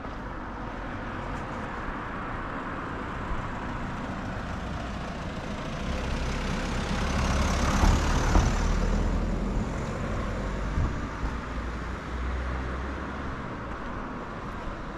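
A car approaching and driving past, its engine and tyre noise swelling to loudest about eight seconds in and then fading away.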